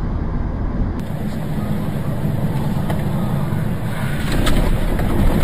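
Steady road and engine noise of a moving vehicle, heard from inside the cabin. About a second in it cuts to a vehicle driving on a wet road, with a few sharp clicks or knocks near the end.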